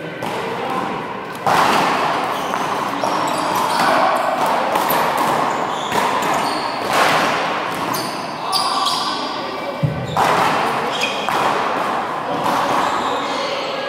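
Handball rally: the small rubber ball smacked by hand against the wall and bouncing off the floor, with sneakers squeaking, echoing around the large hall.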